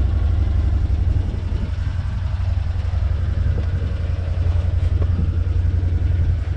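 Can-Am Defender side-by-side's Rotax V-twin engine idling steadily, with the machine standing still.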